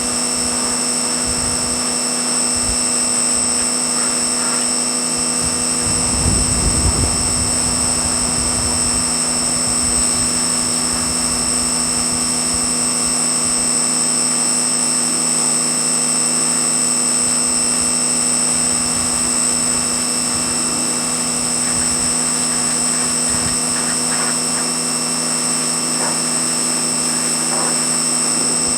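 Pressure washer running steadily, a constant machine drone with a high whine over it, and a brief louder low rumble about six seconds in.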